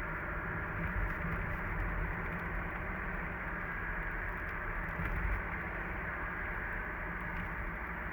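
Mazda CX-30's 1.8-litre diesel on the move, with a steady low rumble and a continuous high whistle-like sound. This is the fault the owner is chasing, an unexplained abnormal noise from the engine bay.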